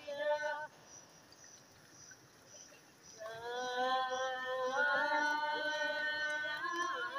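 A high voice singing long held notes. One note breaks off just under a second in, and after a short pause another long note begins about three seconds in, wavering slightly toward the end.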